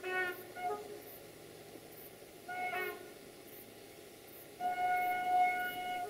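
Air horn of a GM class 64 diesel-electric locomotive sounding on its approach: two quick toots at the start, another short toot near the middle, then a long steady blast from about two-thirds through.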